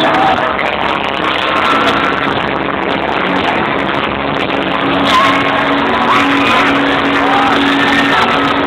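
Crowd noise, with several high, gliding screams and whoops, over music with a repeating low held note playing loudly through the stage speakers.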